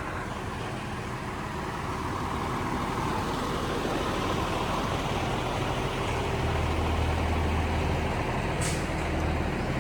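Heavy diesel trucks, concrete mixer trucks, running steadily, with a deeper engine hum swelling a little past the middle. There is one short hiss of air, like an air brake, near the end.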